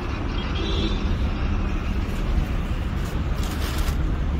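Steady low rumble of road traffic, with no clear single event standing out.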